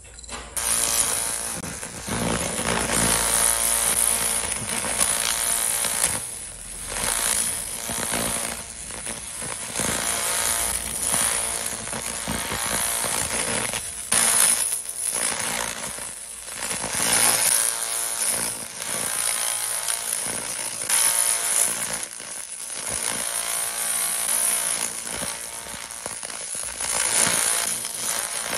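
100 W pulsed laser cleaning head ablating carbon deposits from an engine cylinder head's combustion chambers and valves: a harsh, crackling buzz with a high whine, swelling and easing as the beam sweeps across the deposits.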